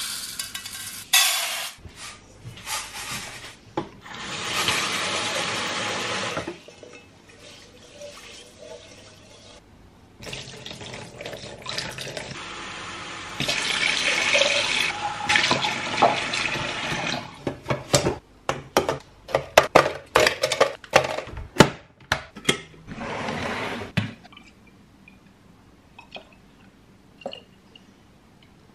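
Dry rice poured from a plastic tub into a measuring cup and into a rice-cooker inner pot, then a kitchen tap running into the pot as the rice is washed. This is followed by a quick run of loud knocks and clinks from the pot and cup, and a few faint drips near the end.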